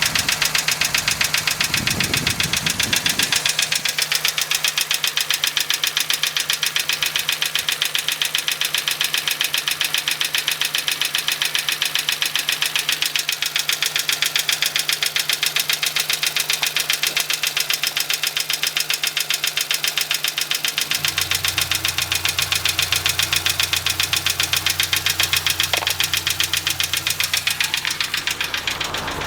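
Hyundai Getz engine idling with a fast, even knock under the bonnet, the 'knock under the hood' the owner is recording at 35,000 km, a little over a month after an oil change. About two-thirds of the way in a low steady hum joins it.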